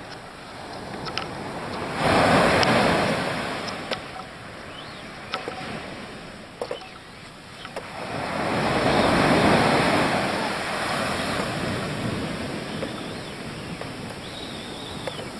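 Surf breaking on a sandy beach, waves crashing and washing up the sand. The wash swells about two seconds in and is loudest again from about eight to eleven seconds, with a few faint clicks in between.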